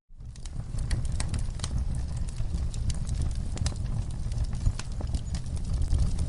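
Wood fire in a fireplace crackling, with irregular sharp pops and snaps over a low rumble of the flames. The sound cuts out for a moment at the very start and fades back in.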